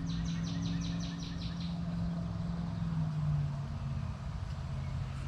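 A bird trilling: a quick run of about ten repeated high chirps over the first two seconds, over a steady low hum.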